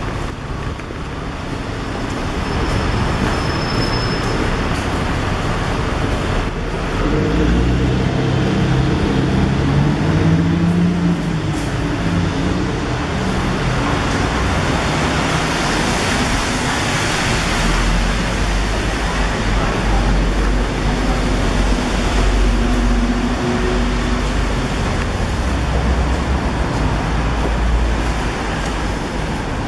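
City traffic noise: a steady wash of passing road vehicles, with a low engine rumble that swells twice as heavier vehicles go by.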